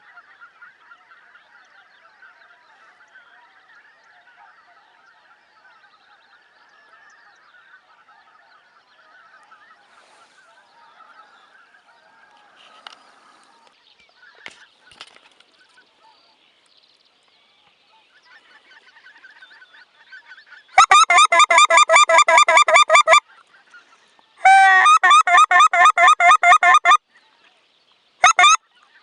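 A flock of geese and swans calling in the distance as a faint steady chorus, then two loud runs of rapid goose honking close by, starting about two-thirds of the way in, and a short burst near the end.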